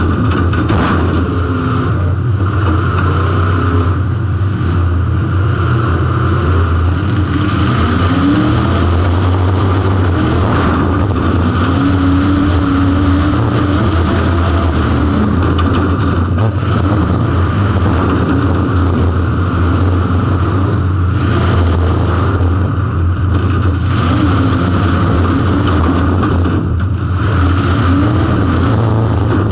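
Car engine running loud and steady, picked up by an on-car camera, with its pitch briefly rising and falling a few times near the middle.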